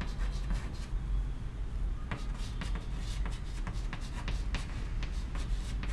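Chalk writing on a chalkboard: a run of short, irregular scratches and taps as letters are written, over a steady low hum.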